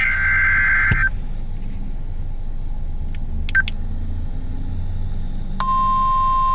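NOAA Weather Radio alert signalling over a receiver: the last burst of the SAME digital alert header, a buzzy two-tone data warble, ends about a second in. A few seconds of faint radio hiss and hum follow. Then about five and a half seconds in, the steady 1050 Hz warning alarm tone of the weekly test comes on.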